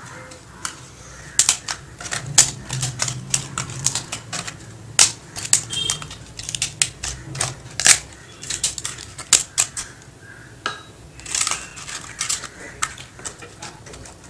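Crisp fried appalams (papads) being broken up by hand: a long, irregular run of sharp crackling snaps.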